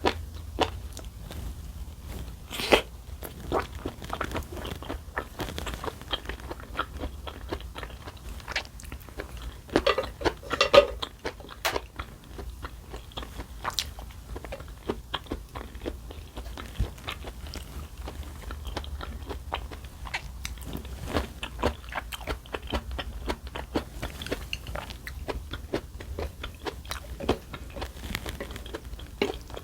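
Close-miked chewing and crunching of food, many small crisp clicks and mouth sounds, with a louder run of bites about ten seconds in, over a low steady hum.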